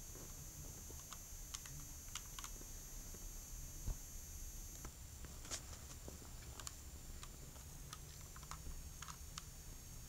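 3x3 Rubik's cube being turned by hand: faint, irregular plastic clicks as its layers are twisted, with one louder knock about four seconds in.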